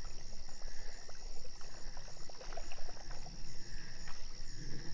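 Steady high-pitched chorus of insects such as crickets, over a low rumble of wind on the microphone, with scattered faint ticks.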